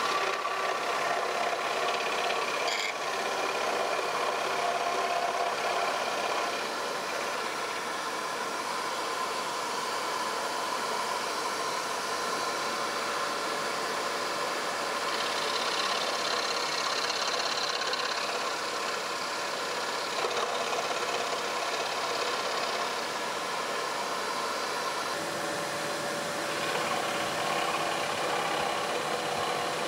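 Axminster Workshop AW405FS scroll saw running steadily, its reciprocating blade cutting a small spiky shape out of thin wood.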